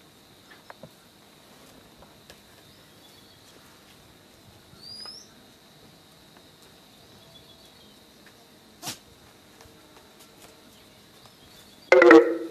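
A goat bleats once near the end, loud and short, over a steady high insect drone, with a couple of faint rising bird chirps.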